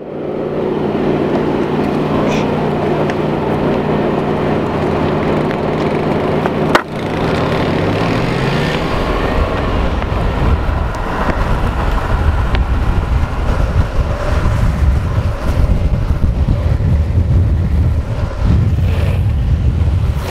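A vehicle engine running steadily, its pitch falling about eight seconds in. After a sharp click about seven seconds in, the sound becomes the low, rough rumble of longboard urethane wheels rolling fast on asphalt, with wind rushing over the microphone.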